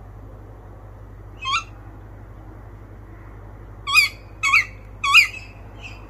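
Tawny owl calling: one short, hooked call about a second and a half in, then three louder ones in quick succession near the end, followed by a faint fourth.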